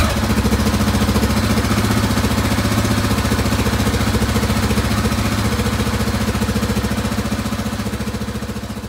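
KTM 690 Enduro R's single-cylinder engine idling steadily just after starting, on its first run after an oil and filter change. The idle fades away near the end.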